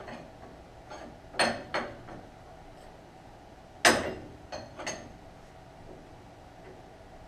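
A handful of sharp metallic clanks and clinks from steel tools and suspension parts being handled, the loudest about four seconds in.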